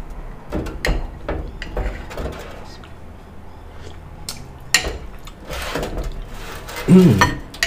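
Metal spoon clicking against a ceramic soup bowl as soup is scooped and sipped, with eating sounds at the mouth. Near the end comes a brief voiced hum, the loudest moment.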